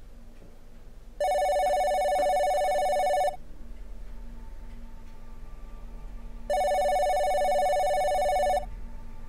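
Cordless phone handset ringing with a warbling electronic ring, twice, each ring about two seconds long with a pause of about three seconds between.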